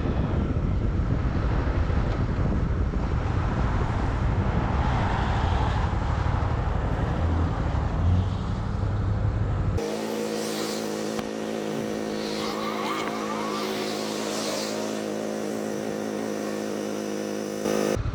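Honda CB300R's single-cylinder engine running on the move, with heavy wind rumble on the microphone. About ten seconds in, the sound changes abruptly to a steadier pitched engine drone with far less wind.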